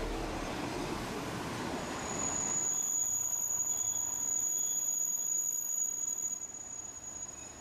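A diesel railcar train passing close by on a curve: a low rumble of the train at first, then about two seconds in a steady high-pitched wheel squeal from the wheels grinding round the curve, which fades out near the end.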